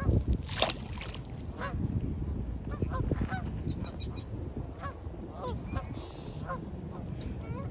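A flock of Canada geese honking, with short calls following one another about every half second to a second over a low rumble. There is one brief loud rush of noise about half a second in.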